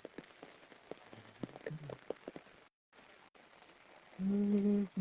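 Rain falling, light drops ticking and pattering over a faint hiss, briefly cut to silence midway. About four seconds in, a loud steady low hum with overtones starts and breaks off just before the end.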